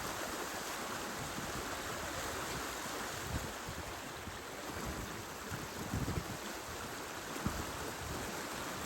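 Water rushing along the hull of a sailing yacht under way, a steady hiss, with uneven low gusts of wind buffeting the microphone.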